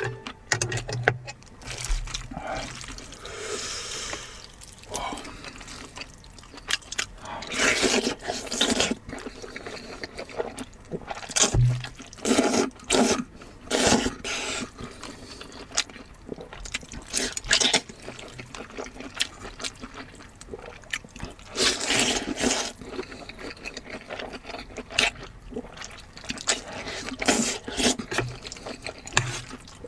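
A person eating meat close to the microphone: irregular wet chewing, smacking and slurping noises with short clicks.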